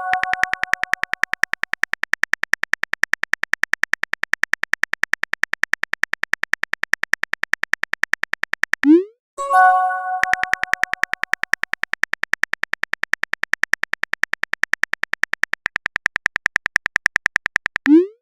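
Phone texting sound effects: rapid, evenly spaced keyboard-typing clicks. About halfway through a short rising swoosh is followed by a ringing message-notification chime, then the typing clicks start again. Another rising swoosh comes near the end.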